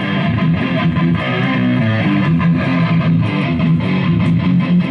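Electric guitar played live through a small amplifier: an instrumental passage of a rock song, notes ringing on without a break.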